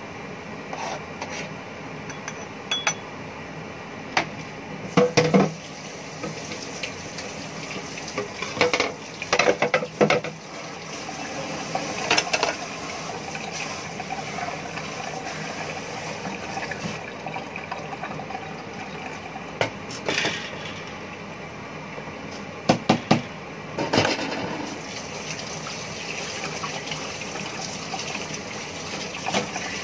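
Kitchen clatter: scattered sharp clinks and knocks of dishes and utensils against the counter and bowls, with water running at the sink.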